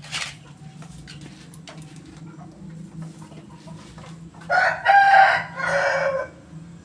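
A rooster crowing once, a call of about two seconds that starts some four and a half seconds in. A faint steady low hum runs underneath, and there is a brief noisy burst at the very start.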